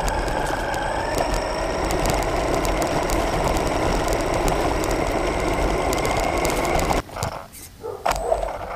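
Radio-controlled model car driving over dirt and gravel, heard from a camera mounted on the car: a steady whine from its motor and gears, creeping slightly higher in pitch, over rattling from the tyres and chassis. About seven seconds in it stops abruptly, leaving a quieter stretch with a few sharp clicks.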